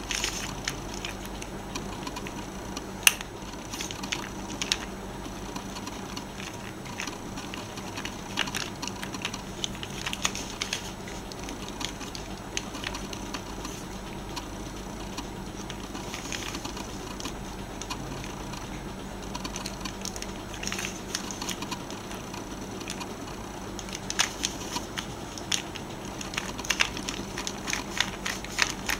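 Plastic pyramid twisty puzzle being turned by hand: irregular clicking and rattling of its pieces as the layers are twisted, in flurries that come thickest near the end.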